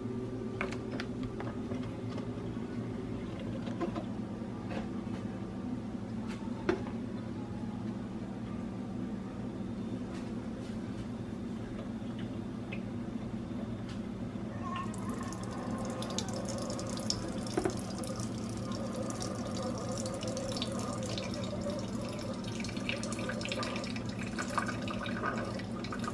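Single-serve coffee machine brewing: a steady pump hum, joined about halfway through by hissing and spluttering as the coffee pours into the cup.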